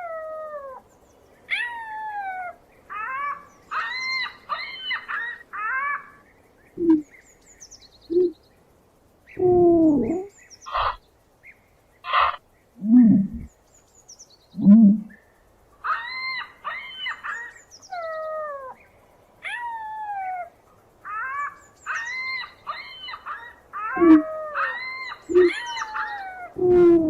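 Ostriches calling. Groups of short whistled chirps fall in pitch, several in quick succession, mixed with a handful of short low grunting calls, the loudest around the middle and near the end.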